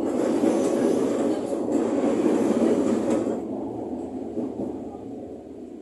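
Commuter electric train (ex-Tokyo Metro 05 series) running along the line, heard from the driver's cab: steady wheel and running noise that comes in suddenly, stays loud for about three seconds, then eases off.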